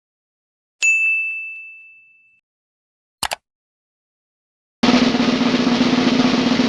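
Edited-in sound effects: a single bell-like ding that rings out and fades over about a second and a half, a brief double click, then a loud sustained drum roll starting about five seconds in.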